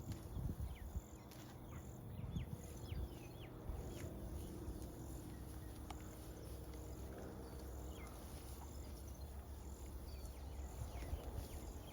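Quiet pasture ambience: birds giving short, quick falling chirps, mostly in the first few seconds, and a faint high chirp repeating about once a second, over a steady low rumble.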